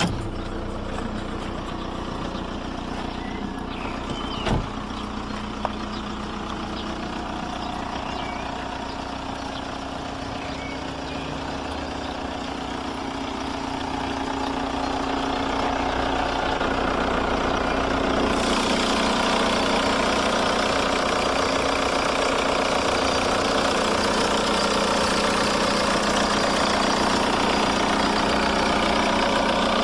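VW Polo 1.9 SDI's naturally aspirated four-cylinder diesel engine idling steadily, with a sharp click about four seconds in. The sound grows louder and brighter about halfway through, then holds steady.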